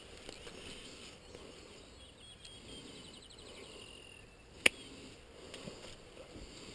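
Faint outdoor background with a short, faint high trill, and a single sharp click about four and a half seconds in.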